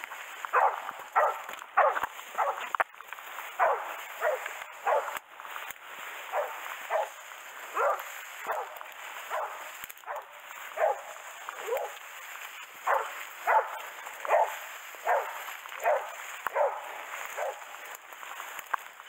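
Hunting hounds barking repeatedly, about one to two barks a second, over a steady rustling haze.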